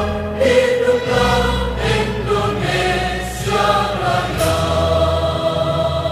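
Background music: a choir singing long held notes over accompaniment.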